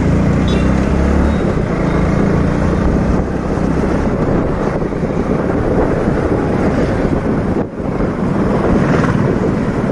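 A motorcycle being ridden at road speed: wind buffets the microphone with the bike's engine running steadily underneath.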